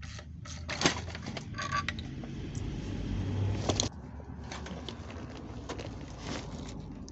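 Metal knocks, clunks and scraping as the BMW i3 drive motor is worked loose from the range-extender engine by hand, with one short metallic ring; a louder scraping strain builds and stops abruptly about four seconds in.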